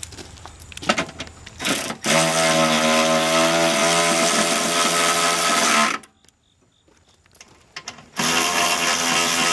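Cordless electric ratchet running bolts down with a steady motor whine. The first run lasts about four seconds, then stops. After a short pause it starts again near the end. A few light clicks of the socket being set come before the first run.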